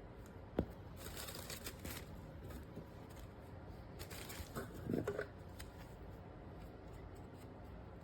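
Faint rustling and handling noises, with a sharp click about half a second in and a louder brief scuffle around five seconds in.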